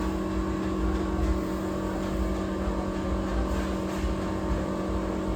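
Steady machine hum, holding a few even tones over a low rumble without change.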